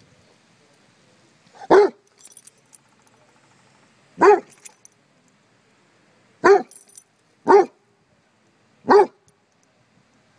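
Basset hound barking at a bumble bee: five loud single barks, one to two seconds apart.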